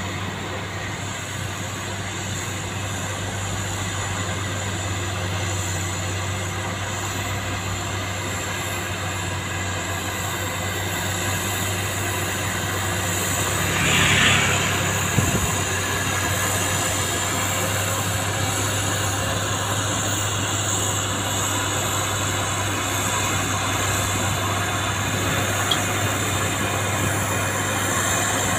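Diesel engines of dump trucks and a road roller running steadily with a constant low hum, with a brief louder rush of noise about halfway through.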